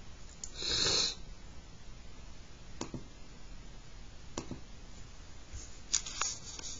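A short, sharp breath-like hiss about a second in, then a few faint scattered clicks.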